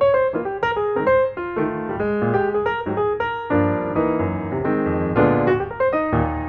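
Background piano music playing a quick succession of short notes.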